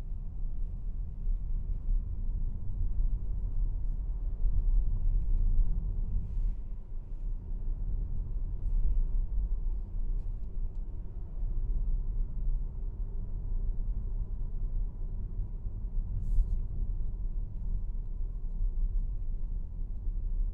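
Steady low rumble of tyre and road noise inside the cabin of a Mazda MX-30 electric car driving through city streets, with a faint steady whine and a single light click about three quarters of the way through.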